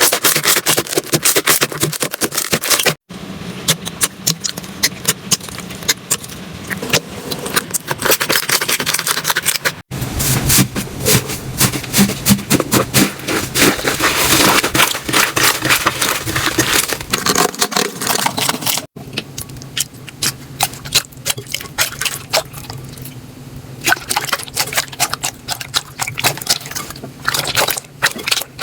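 Slime being squeezed, pressed and stretched by hands, with dense crackling and sticky clicking and popping. It comes as four separate clips, each ending in a brief silent cut.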